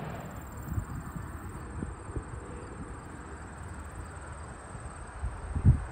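Faint low rumble of a distant jet airliner on approach, landing gear down, with a few irregular low thumps, the loudest near the end.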